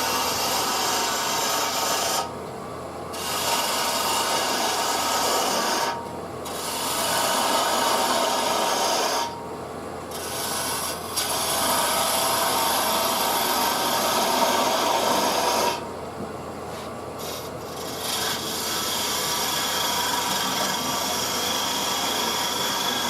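A turning tool scraping and cutting against a spinning maple burl bowl on a lathe, in several long passes broken by four short pauses while the lathe keeps running.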